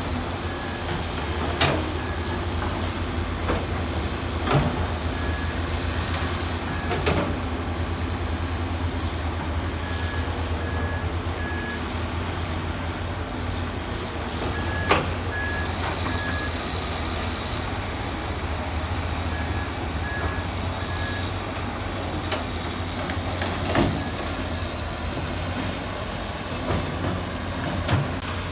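Heavy earthmoving machine's diesel engine running steadily, with a reversing alarm beeping in groups of three every few seconds and a few sharp metallic clanks.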